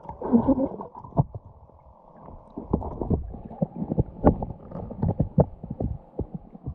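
Irregular, muffled knocks and clicks over a low rumble, with nothing above the low range, as a camera sealed in a waterproof housing hears handling and movement in or at the river.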